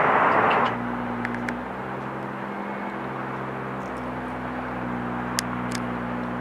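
A steady low engine hum, as of an idling vehicle. A loud rushing noise cuts off less than a second in, and a few short sharp ticks come later.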